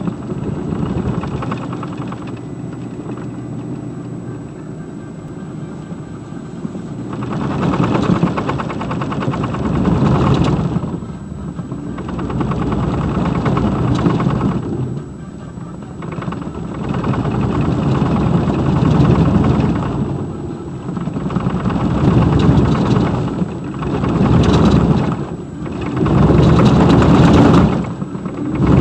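2002 Chevrolet Silverado 2500HD driving on packed snow, heard inside the cab: a low rumble and shudder from the driveline that swells and fades every few seconds. It is the sign of a broken center (carrier) support bearing letting the driveshaft shake.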